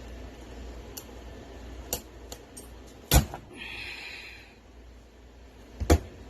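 Knife working through a blue crab's shell: light clicks, then two heavy knocks of the blade against the cutting surface about three seconds apart, with a brief crackling scrape just after the first.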